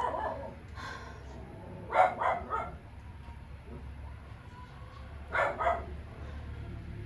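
A dog barking in short bursts: one bark about a second in, a quick run of barks about two seconds in, and another couple of barks a little past the middle.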